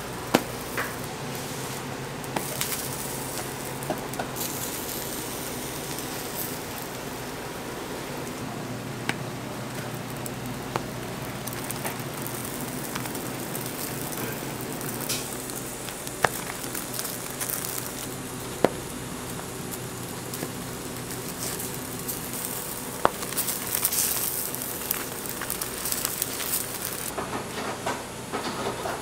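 Burger buns toasting cut-side down on a hot flat-top griddle: a steady light sizzle and crackle over a low hum, with a few sharp clicks as the buns are handled.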